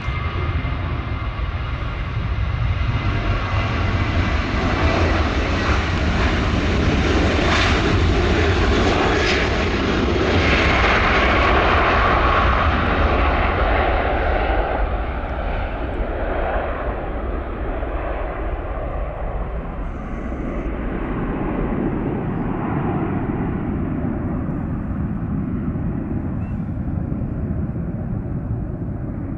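Boeing 737 jet's twin turbofan engines at takeoff thrust: a steady roar with a whine on top, loudest as the aircraft rolls past and lifts off about halfway through, then growing duller and fading a little as it climbs away.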